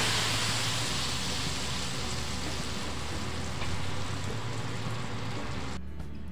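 Hot gingelly oil with fried sundakkai vathal and curry leaves sizzling as it hits a pan of simmering tamarind kuzhambu. The hiss slowly dies down and cuts off near the end.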